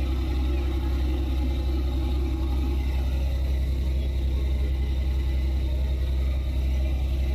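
Fishing boat's engine idling with a steady low rumble.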